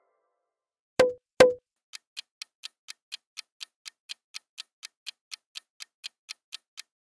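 Quiz countdown-timer sound effect: two sharp knocks about a second in, then clock-like ticking at about four ticks a second.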